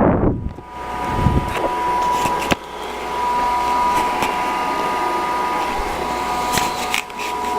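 JML Dri Buddi heated clothes dryer's fan heater running: a steady whir with a high whine, dipping briefly a few times.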